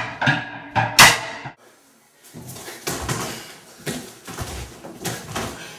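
Sharp bangs of people hitting a home-built hallway obstacle course, two loud ones in the first second. After a short silence comes a run of lighter knocks, about two a second.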